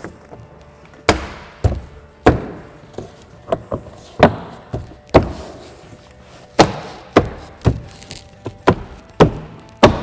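Plastic door trim panel being pressed and smacked onto the door by hand, its retaining clips snapping into place: a dozen or more sharp thumps at irregular intervals, about one or two a second.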